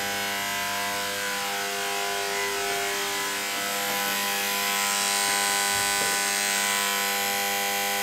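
Steady electrical hum and buzz from an energized ballast and high-voltage transformer running off the mains: a steady buzz with many overtones over a hiss that grows a little louder about five seconds in.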